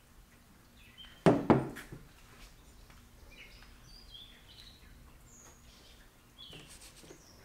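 Two loud knocks close together about a second in, with a short ring, as a metal climbing stick is handled on a plywood table, and softer knocks near the end. Birds chirp in the background.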